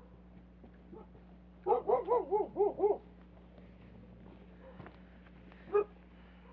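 A dog barking: a quick run of about six barks, then one more bark a few seconds later.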